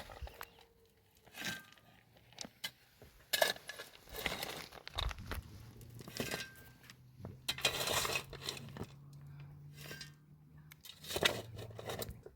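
Irregular rustling, crinkling and knocking of materials being handled, in uneven bursts, with a faint low steady hum from about five to eleven seconds in.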